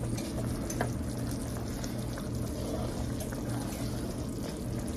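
Gravy simmering in a stainless steel skillet, bubbling steadily, while a metal spoon stirs it with a few light clicks against the pan.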